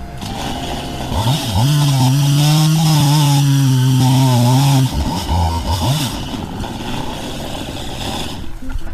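Chainsaw revved up to full speed and held there for about three and a half seconds, then dropping back to a lower speed with a couple of short blips of the throttle.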